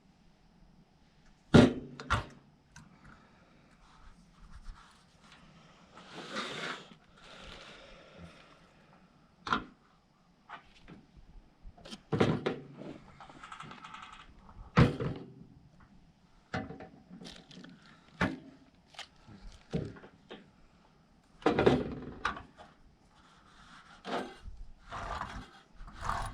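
Gear being handled: irregular knocks, thunks and scrapes, the loudest about a second and a half in, with a few short rustling stretches between them.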